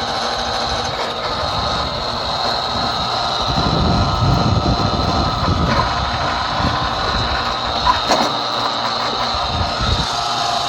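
Sunmoy drilling rig running steadily, its engine and hydraulic pump giving a constant drone with a high whine, and a single sharp metallic knock about eight seconds in.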